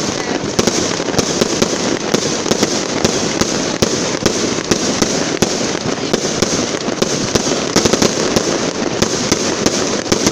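Fireworks display: aerial shells bursting overhead in a continuous barrage of rapid, loud bangs, many a second without a pause.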